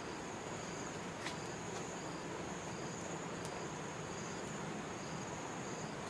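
Insects calling in the grass: a steady high drone with a short chirp repeating about every 0.7 seconds, and one small click about a second in.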